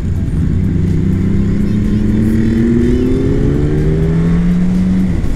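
Yamaha R1's inline-four engine pulling under steady acceleration, its pitch rising slowly for about four seconds and then dropping off near the end, with wind rushing past the helmet microphone.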